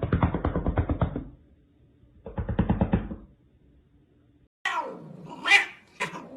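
Two bursts of rapid pulsing, each about a second long and about a second apart. Then, about two-thirds of the way in, a cat starts yowling in loud, drawn-out calls that fall in pitch: an angry cat.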